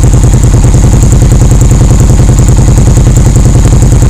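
Cruiser motorcycle engine idling through staggered dual chrome exhaust pipes: loud and steady, with an even, rapid pulsing beat.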